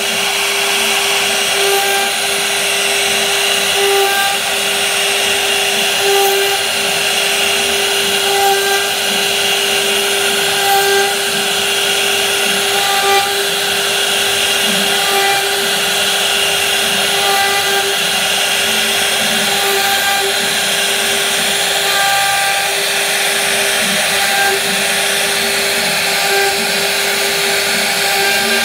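CNC router spindle running with a steady whine while its bit cuts recesses into a wooden board. The hiss of the cutting sits under the whine and swells briefly about every two seconds as the bit works along its path.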